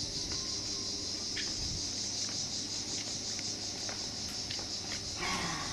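Cicadas singing, a steady high-pitched buzz, over a low rumble.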